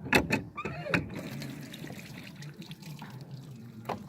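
Water running steadily, as from a tap or hose rinsing fish, starting about half a second in, with a few sharp knocks near the start.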